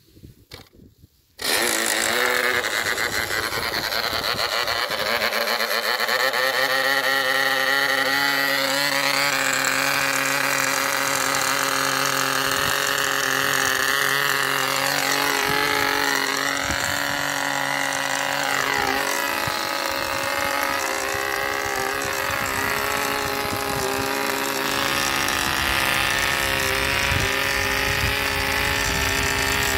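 A Mills .75 replica model diesel engine, a 0.75 cc single-cylinder, catches suddenly about a second and a half in after the propeller is flicked by hand, then runs continuously at high speed. Its pitch swings up and down several times as the compression is adjusted, then settles.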